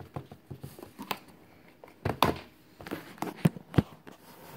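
A cardboard card box being handled and slid out of its outer sleeve: scattered taps, knocks and scrapes of cardboard, a few louder knocks about two seconds in and again near the end.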